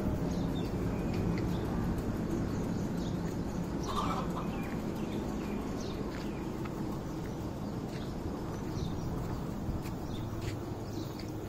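Steady outdoor background noise with scattered short calls of chickens and small birds, one call standing out about four seconds in.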